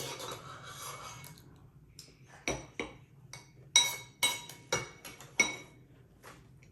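A spoon clinking against a cereal bowl while someone eats cereal with milk: about half a dozen sharp, ringing clinks spread over a few seconds.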